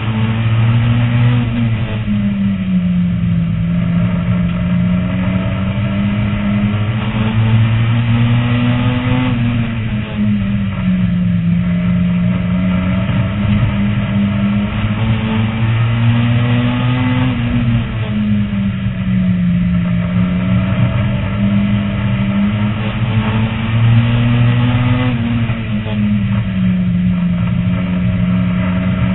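Oval race car engine at race speed, heard from inside the cockpit. Its pitch climbs along each straight and drops when the driver lifts for the turns, repeating about every eight seconds, lap after lap.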